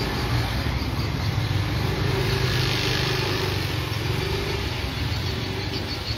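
Steady low rumble of a running engine, like a motor vehicle idling close by.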